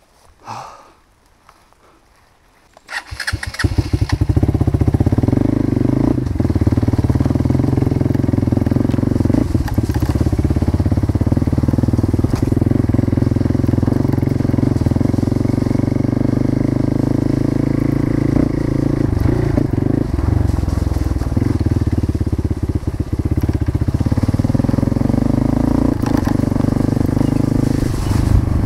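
Motorcycle engine starting about three seconds in, then running steadily.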